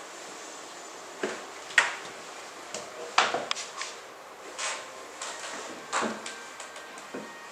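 Scattered short knocks and clunks, roughly one a second, over a quiet room hiss in a small room.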